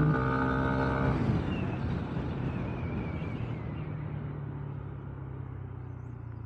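Kymco KRV Roma GT's 175 cc liquid-cooled four-valve scooter engine and stock exhaust running under way; about a second in the engine note drops and it goes on fading as the throttle is eased off.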